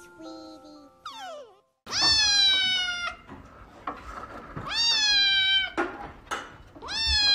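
Kitten meowing loudly three times, each meow drawn out for about a second, rising quickly at the start and then sliding slowly down in pitch.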